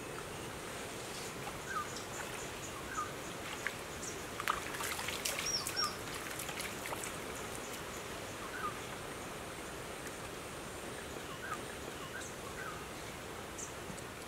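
Rainforest ambience: a steady background hiss with short bird chirps every second or so. A cluster of sharp clicks and taps comes between about four and six seconds in.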